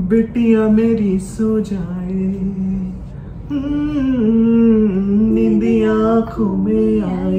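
A woman and a man singing a song together without accompaniment, in long held, melodic lines.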